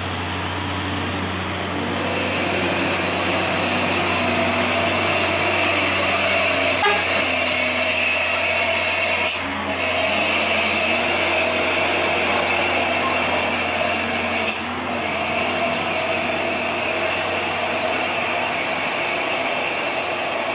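Heavy cargo truck's diesel engine labouring in low gear up a steep hairpin climb: a steady drone with a high whine over it, which joins about two seconds in.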